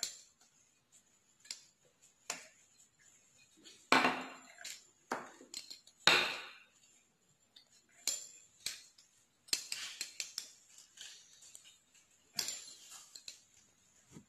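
Metal pizza cutter wheel run in strokes through thinly rolled dough on a hard countertop: irregular scraping strokes and light clicks of metal on the surface, the longest strokes about four and six seconds in.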